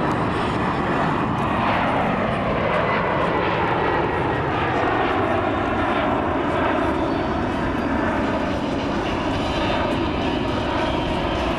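Twin turbofan engines of a Boeing E-767 AWACS jet running at high power as it climbs away overhead: a steady, loud jet noise with a whine that falls in pitch over the first several seconds as the aircraft passes.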